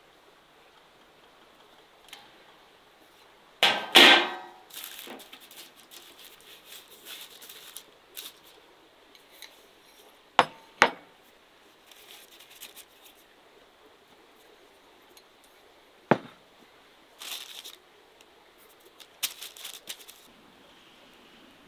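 Glass bowls and a metal tray clinking and knocking, with short rustles of paper between. A loud clatter with a brief ring comes about four seconds in, two sharp clinks half a second apart near the middle, and one more a little later.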